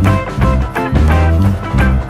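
Background music: an upbeat tune with guitar and a steady, bouncy bass beat.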